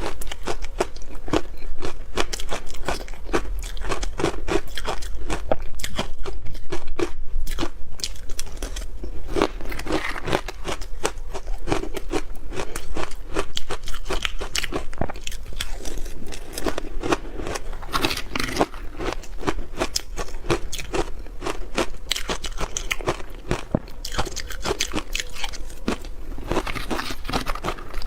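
Ice being bitten and chewed close to the microphone: dense, irregular crunching and cracking with no pause.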